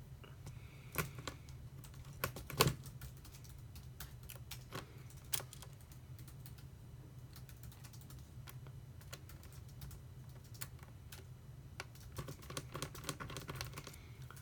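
Light clicks and taps of a small screwdriver and metal laptop parts being handled while a screw is started to hold a MacBook Pro's display in place. There are a few sharper knocks in the first three seconds and a quick run of small clicks near the end.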